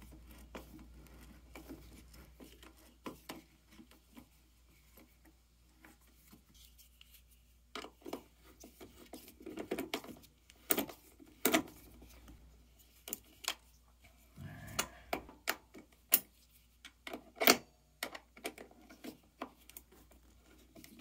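Scattered metal clicks, scrapes and knocks of a Juiced HyperScrambler 2 passenger foot-peg bolt being screwed in by hand and the parts being handled, with a few sharper clicks in the second half.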